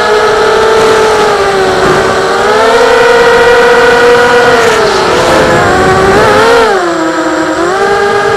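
A 5-inch FPV quadcopter's four 2206 2100 KV brushless motors on 4S, spinning GF5045 propellers: a loud, steady whine whose pitch follows the throttle. It dips and rises about halfway through, then drops lower near the end before climbing back.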